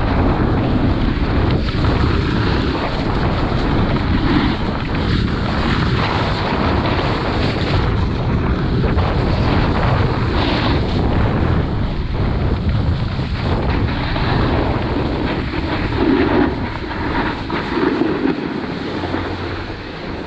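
Wind rushing over the microphone and a Never Summer SL snowboard scraping and chattering over choppy snow as the rider rides down and slows to a stop.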